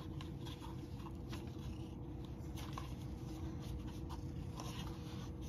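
Cat crunching dry kibble: faint, irregular crunching clicks over a steady low hum.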